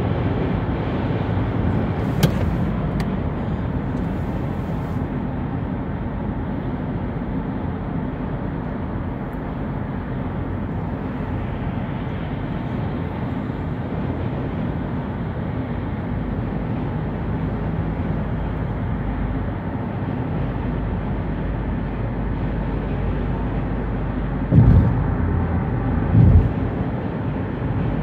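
Steady road and tyre noise of a car cruising at highway speed, heard from inside the cabin. A sharp click comes about two seconds in, and two short, louder thumps come near the end, about a second and a half apart.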